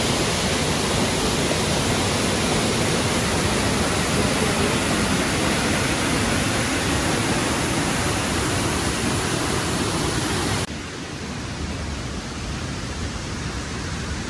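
Brandywine Falls, a 60-foot waterfall, giving a loud, steady rush of falling water. About ten seconds in, the rush drops suddenly to a softer, thinner rush.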